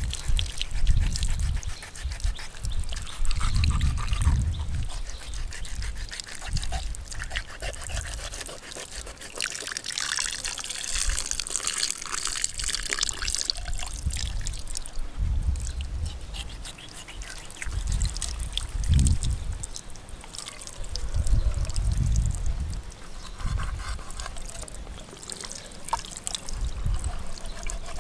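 Water trickling and splashing over a shark carcass as it is cut open and gutted with a knife, with wet squelching and scraping of flesh. The splashing is heaviest for a few seconds around the middle, and dull low thumps recur throughout.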